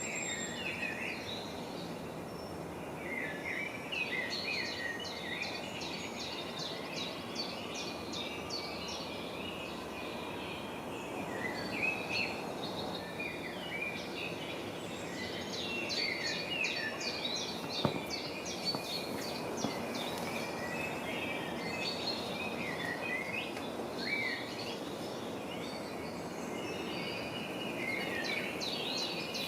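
Birds chirping and trilling in quick, overlapping bursts over a steady rushing background noise, with a single sharp click about two-thirds of the way through.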